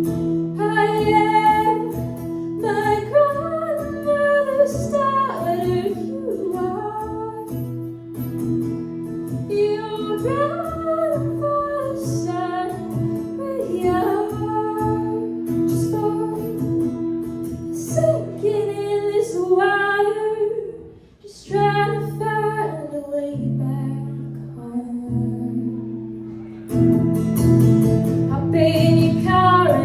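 A woman singing a slow song to strummed acoustic guitar. The music drops away briefly about two-thirds of the way through, and the guitar comes back fuller near the end.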